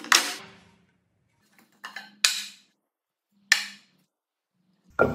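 Blocks of lumber set down hard on a metal machine table: a handful of separate loud wooden clunks about a second apart, each dying away quickly.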